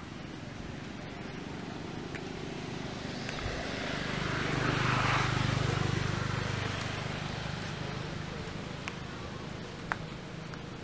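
A motor vehicle passing by: a low engine hum with tyre noise that grows louder to a peak about halfway through, then fades away. A few faint clicks.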